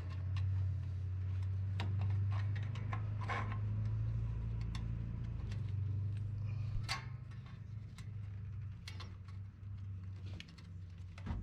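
Scattered light clicks and knocks of rear drum brake parts being handled and fitted, over a steady low hum that drops a little about six seconds in.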